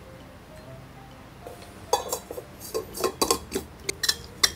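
Lids being pressed and snapped onto Stanley stainless steel tumblers. A quick run of clicks and clinks starts about two seconds in.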